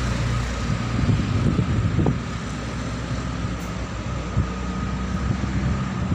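Steady road traffic noise with a low rumble, mixed with wind buffeting the phone's microphone.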